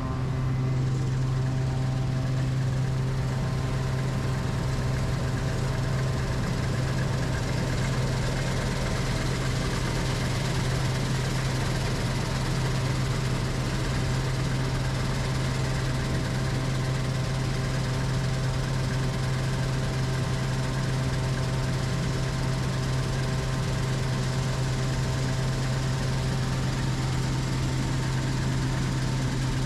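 Engine of farm harvest machinery running steadily at a constant speed: an even, unchanging drone with a strong low hum.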